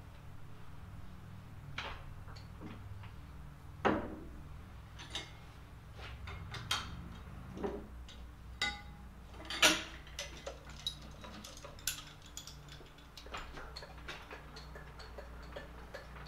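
Irregular metallic clanks, clicks and knocks from steel parts being handled on a lathe's four-jaw chuck and the hook and chain of a shop crane being taken off it. Two knocks stand out, about four seconds in and just before ten seconds, over a faint steady low hum.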